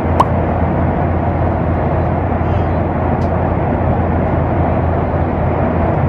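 Steady jet airliner cabin noise in flight: a constant rush over a low hum. There is a short click about a fifth of a second in.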